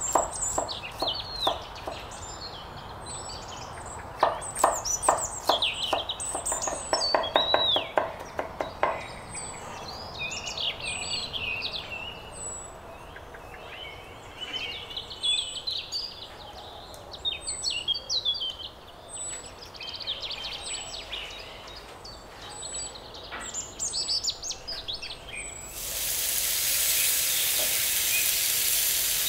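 A heavy hammered cleaver chopping garlic on a wooden cutting board, a quick run of knocks that stops about nine seconds in, while small birds chirp and sing throughout. About 26 seconds in, a loud hissing sizzle starts suddenly as a large seasoned bone-in steak goes onto a hot charcoal grill grate.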